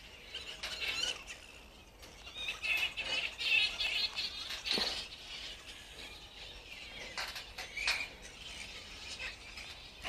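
Birds chirping and chattering, busiest a few seconds in, with a few sharp clicks from wire hooks and plastic fruit tubs being handled against the wire mesh of an aviary.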